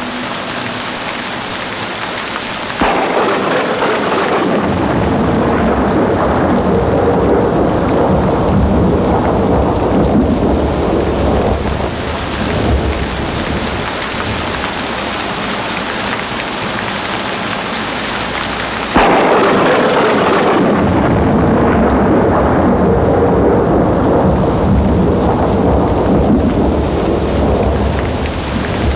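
Rain-and-thunder soundtrack: steady rain, with a peal of thunder breaking in suddenly about three seconds in and another about nineteen seconds in, each rolling on for several seconds before dying down.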